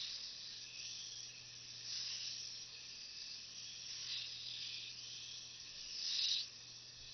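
Chatter ring whirring as its beads are kept circling the wire ring, which is held level: a steady metallic hiss that swells about every two seconds and is loudest near the end.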